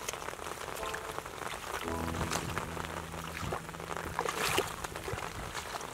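Hands sloshing and splashing in shallow muddy rice-field water, with a steady patter like falling rain. About two seconds in, a few steady low tones of music sound for about a second and a half.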